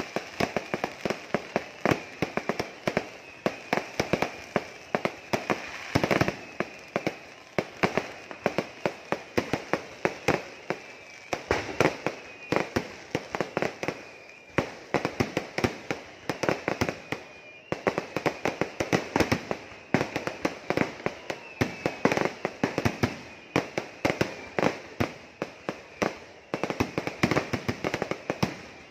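A dense fireworks barrage of Kerala temple-festival fireworks (vedikettu): loud, rapid, uneven bangs and cracks, several a second, with thin high whistles threaded through.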